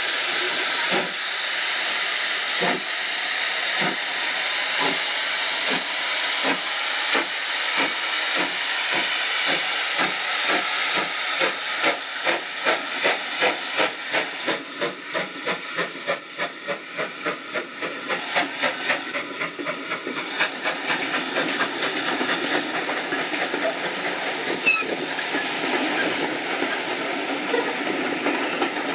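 GWR Large Prairie 2-6-2 tank engine No. 4144 pulling away with a train. Its exhaust beats over a heavy steam hiss start slow and steadily quicken until they merge into a continuous chuffing and rumble as the carriages roll by.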